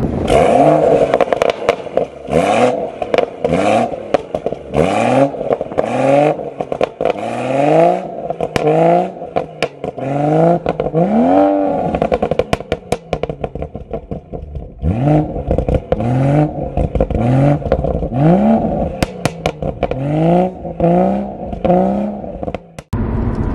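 Stage 2 BMW M140i's turbocharged B58 straight-six, fitted with a downpipe and sports cat, revved repeatedly at a standstill: quick blips about once a second that rise and fall, each followed by pops and crackles from the exhaust. There is a brief lull about midway.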